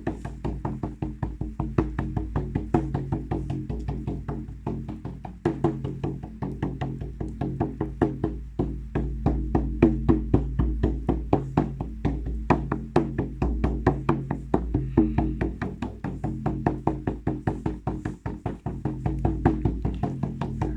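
Music: a rapid, steady percussive beat of sharp taps over a sustained low drone.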